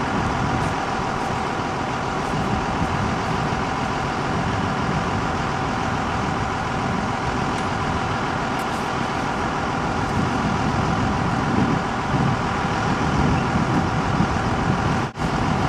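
Bucket truck's engine idling steadily: a constant drone with a steady hum in it, which drops out briefly near the end.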